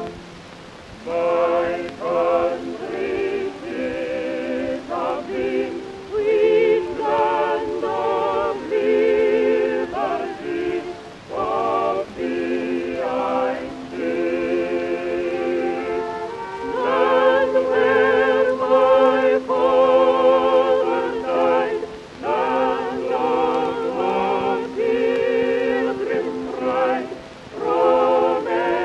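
Background music: a vocal melody sung with a wide vibrato in phrases of a second or two, over sustained held chords.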